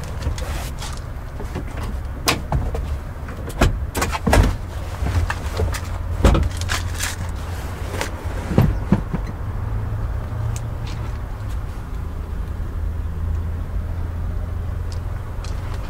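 Honda Civic 1.6-litre four-cylinder engine idling, a steady low hum, with scattered short clicks and knocks over it.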